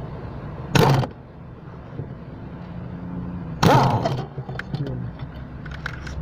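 Two short, loud knocks about three seconds apart, from socket-and-extension work on the clutch pedal bracket under the dashboard, over a steady low hum.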